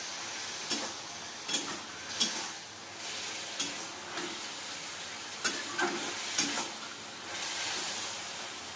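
Mushrooms sizzling in a wok while a metal spatula stirs them. Its sharp scrapes against the pan come about seven times at uneven intervals over a steady frying hiss.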